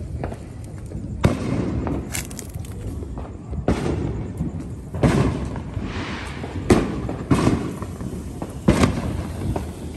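Fireworks exploding in the neighbourhood: about six sharp bangs a second or two apart, each trailing off in an echo.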